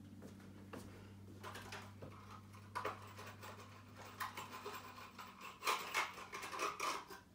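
Irregular light clicking, rattling and rustling of small objects being handled and rummaged through, over a low steady hum that partly drops away about five seconds in.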